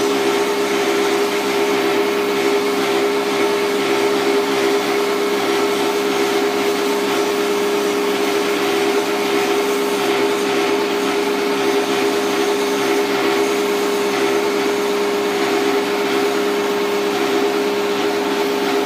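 Small portable electric pressure washer running steadily, its motor-pump humming at one fixed pitch with a hiss of spray as water is jetted onto the coil of a split AC indoor unit.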